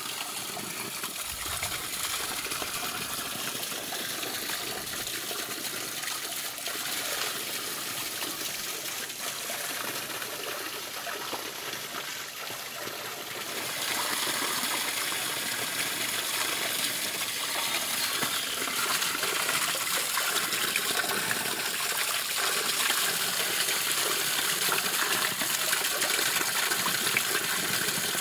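Spring water pouring from a pipe spout onto a metal drain grate, a steady splashing that gets louder about halfway through.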